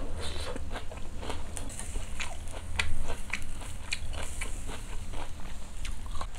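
A person chewing grilled pork galbi close to the microphone, with irregular wet smacks and clicks of the mouth over a low steady hum.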